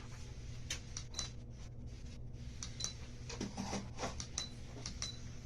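Ceiling fan running on high: a steady low hum of the motor and moving air, with scattered light clicks and ticks over it.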